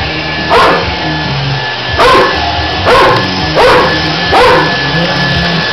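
Large dog barking five times in a row, each bark short and sharp, barking at a vacuum cleaner it is afraid of.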